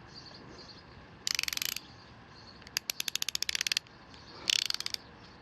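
Tekton extra-long flex-head ratcheting box end wrench with a 72-tooth ratchet being swung back and forth: three runs of fast, fine clicks from the pawl, the middle run the longest.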